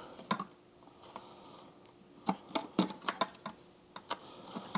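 A few light plastic clicks and knocks, spread irregularly, from the dirty-water tank and pre-motor filter of a Eureka FC8 wet-dry floor washer being handled and examined.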